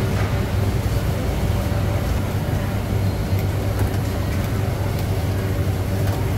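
A steady low mechanical hum, the drone of a motor running, over a constant background of busy market noise.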